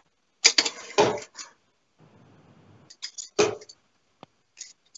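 Darts striking and being pulled from a Winmau Blade 5 sisal dartboard: a cluster of sharp clicks and knocks about half a second in, a faint rustle around two seconds in, and another sharp knock just past the middle.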